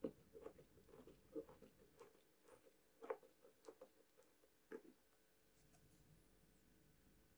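Faint, irregular ticks and creaks of a screw being turned by hand into a small wooden block with an Ingco PH2 Phillips screwdriver, stopping about five seconds in.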